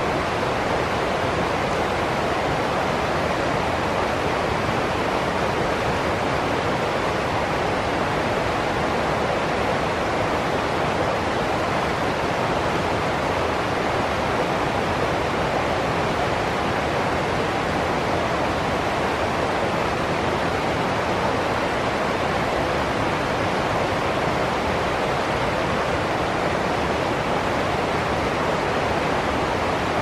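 Rocky stream rushing and splashing over small rapids and cascades in a steady, unbroken flow.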